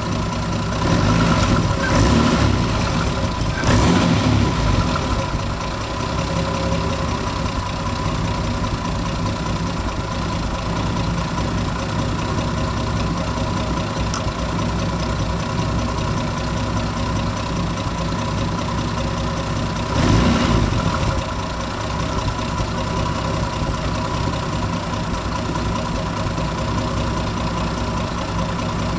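Turbocharged engine idling, revved briefly three times: about a second in, near four seconds, and about twenty seconds in. A steady whine runs over the engine sound, and the owner takes the noise for a bad turbo.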